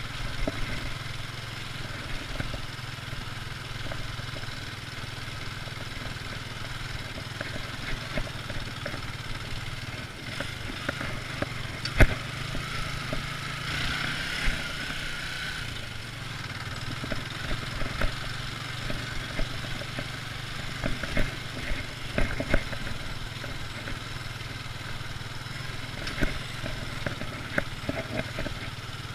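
Motorcycle engine running steadily, with scattered light clicks and one sharp knock about twelve seconds in.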